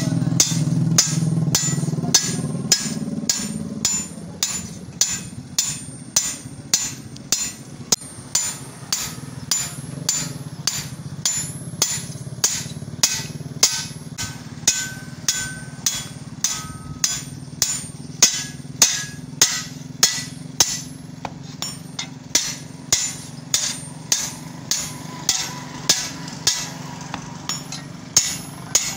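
Steady hammering, about two blows a second, during repair work on a chaff-cutting machine. A low hum is loud at first and dies down within the first few seconds.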